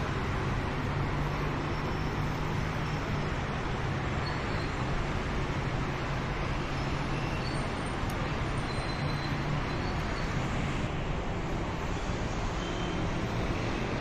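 Steady road traffic noise from the expressway beneath the bridge: a continuous rush with a low hum underneath.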